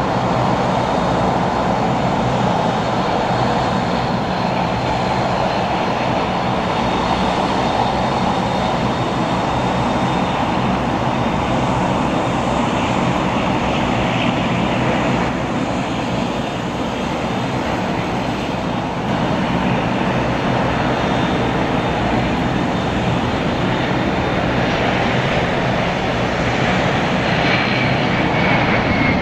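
Boeing 737-900ER's CFM56-7B turbofan engines on final approach and touchdown: a steady jet rumble with a thin high whine over it.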